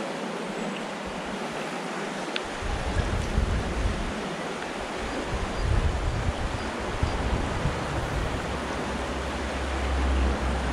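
Small river flowing, a steady hiss of running water. A low wind rumble on the microphone sets in about two and a half seconds in.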